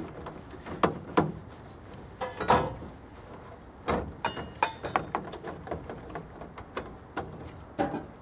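Dishes, pans and utensils clinking and knocking as they are washed in a stainless steel bowl and set into a plastic dish rack: irregular clinks and knocks, a few of them ringing briefly.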